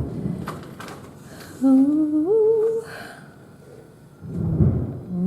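A woman's drawn-out "ooh" that rises in pitch, between low, muffled booms of fireworks heard through a window, one at the start and another near the end.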